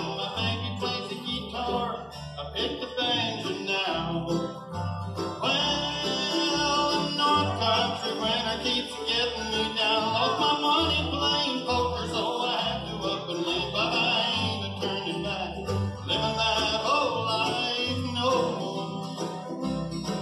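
Bluegrass band playing live with a lead singer: acoustic guitars, mandolin and banjo over an upright bass walking out a steady beat.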